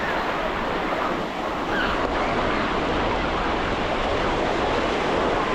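Ocean surf washing onto a sandy beach, a steady rush of breaking waves, with wind buffeting the microphone.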